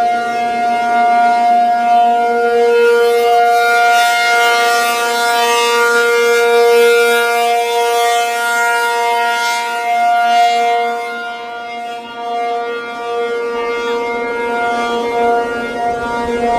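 ACA Penetrator 50 (P-50) outdoor warning siren sounding its alert (steady) tone, very loud at close range: one unbroken pitch rich in overtones, its level swelling and dipping as the rotating horn turns, lowest about twelve seconds in.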